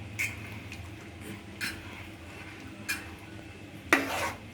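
A spoon scraping the pot while thick jackfruit payasam is stirred: a short scrape about every second and a half, the last one near the end louder and longer.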